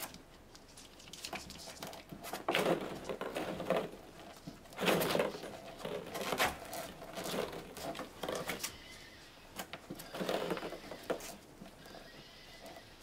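Havanese puppies playing in a plastic ball pit: irregular bursts of plastic balls clattering and rustling as they move, with high puppy whines and yips.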